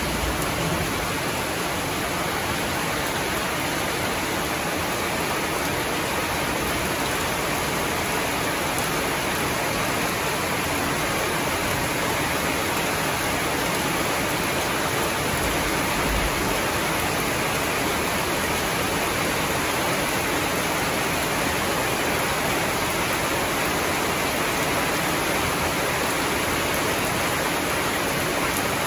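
Heavy rain pouring down steadily, an even, unbroken hiss that neither builds nor eases.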